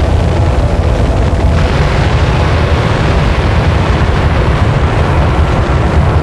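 Noise music: a loud, unbroken wall of dense distorted noise, heaviest in the low rumble, with the upper hiss thickening about a second and a half in.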